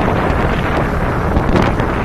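Loud, steady wind buffeting on the microphone of a camera riding on a moving cruiser motorcycle, heaviest in the low end, with the bike's running and road noise mixed in underneath.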